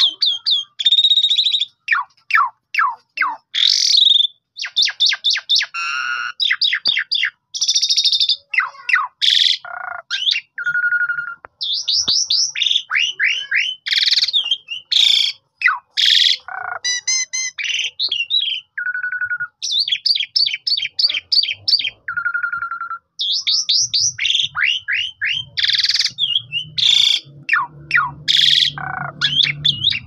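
Javan pied starling (jalak suren) singing a long, varied song almost without pause: rapid runs of sweeping, chattering notes mixed with rasping screeches and a short steady whistle that comes back three times.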